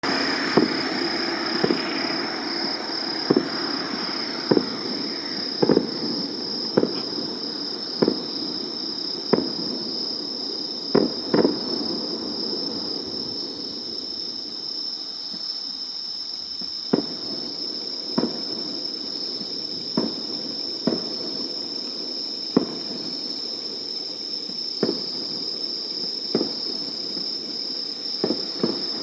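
Fireworks going off: a series of sharp bangs about a second apart, coming thickly at first, pausing briefly in the middle, then carrying on more sparsely.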